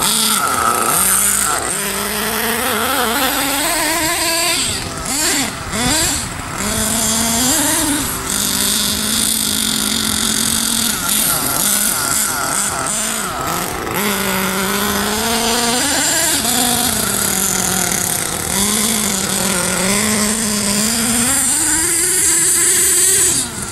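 HPI Savage nitro RC truck's small two-stroke glow engine running under throttle. Its pitch rises and falls over and over as the truck is driven, and it dips near the end. The engine is still cold.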